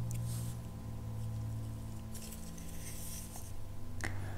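Faint rustling of gloved hands handling a knotted cloth strip, in a couple of soft spells, over a steady low hum.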